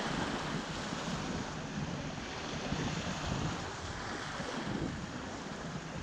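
Small Black Sea waves breaking and washing up a sandy beach in a steady hiss of surf, with wind rumbling on the microphone.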